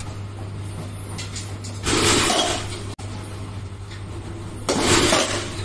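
Two loud metallic clanks, each with a short ringing tail, about three seconds apart, over a steady low hum. This is batting-cage clatter: pitching machines and metal bats striking balls.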